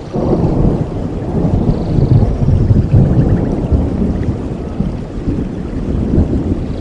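Thunder rumbling over steady rain, swelling up at the start and loudest in the middle. A few faint bird chirps come through the rain.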